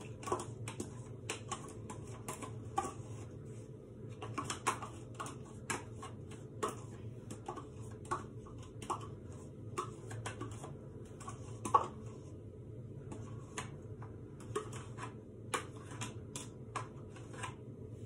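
Small plastic yogurt pots being handled and emptied, with a spoon scraping and tapping them: irregular light clicks and taps over a low steady hum.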